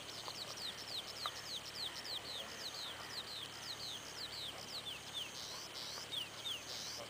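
Small birds chirping in a dense stream of short calls, each falling in pitch, several a second. Two longer buzzy notes come late on.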